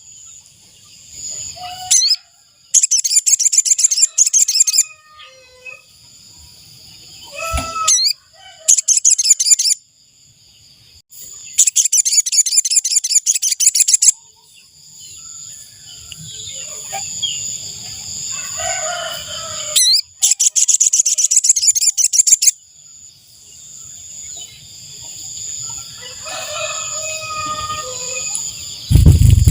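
Spiderhunter (sogok ontong) calling in bursts of rapid, high-pitched trilling, each one to three seconds long, five times, over a steady high buzz. A low thud near the end.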